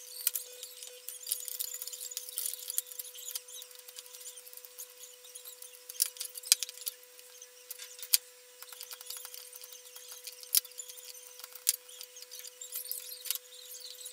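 Small clicks, taps and rustles of wires and parts being handled in a sheet-metal amplifier chassis, with a few sharper clicks among them, over a faint steady high tone.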